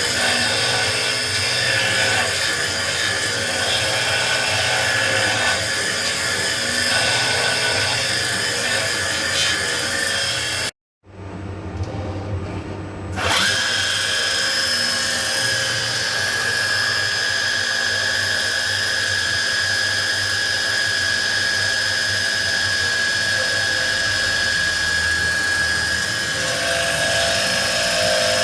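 High-speed spindle of a CNC lining-drawing and cutting machine running as it works a piece, with a steady high-pitched whine like a dental drill. About eleven seconds in the sound breaks off for a moment and returns quieter. About two seconds later a steady high whine comes back and holds.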